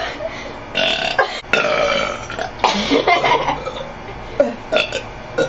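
A woman belching several times: a short burp, then two long drawn-out ones, then two short burps near the end.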